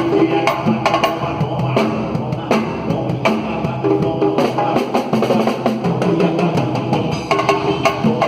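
Samba music with drums and hand percussion keeping a steady beat, over pitched lines from instruments or voices.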